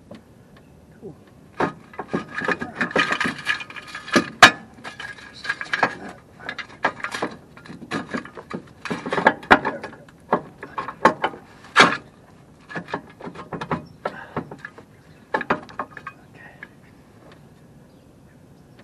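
Steel ratchet jack stand being adjusted and set in place: an irregular run of metal clicks, clanks and scrapes that dies away near the end.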